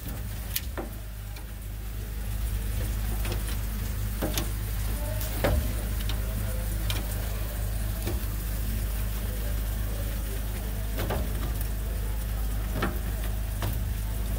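Meat and fat sizzling on the racks of an open barbecue smoker, with scattered sharp pops and crackles over a steady low hum.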